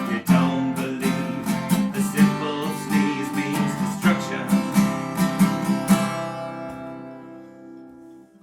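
Acoustic guitar strumming chords, then a final chord about six seconds in that rings and fades away before cutting off.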